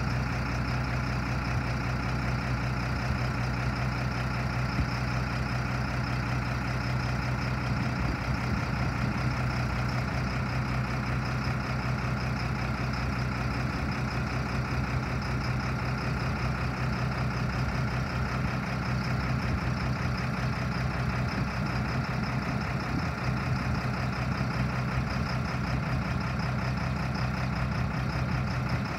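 1992 GMC Topkick grain truck's engine idling steadily while the hydraulic hoist lets the raised grain box down.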